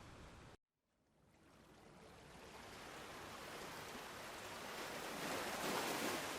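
Ocean surf: a steady hiss breaks off about half a second in, and after a moment of dead silence a wave swells up, loudest near the end, and begins to wash back.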